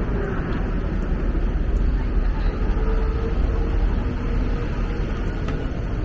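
City street ambience: a steady low traffic rumble with background voices of passers-by.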